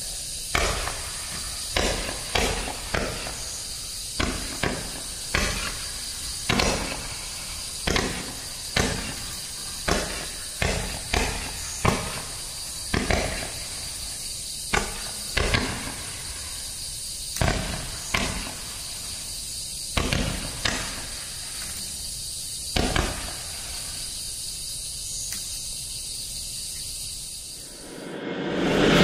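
Roman candles firing: a long, irregular string of sharp pops, roughly one or two a second, each one a star being shot out, over a steady high hiss. The pops stop a few seconds before the end.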